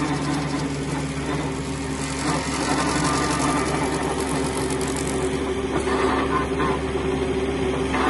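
Engine of a piece of tree-removal equipment running steadily.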